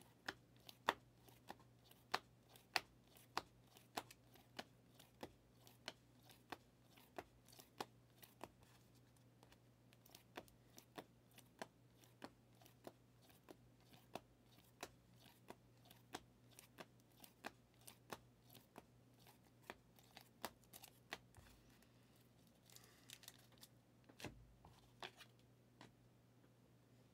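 Prizm football cards being flicked one at a time off a hand-held stack, each card giving a soft sharp click, about one and a half a second, with a brief pause about nine seconds in and a little rustling near the end.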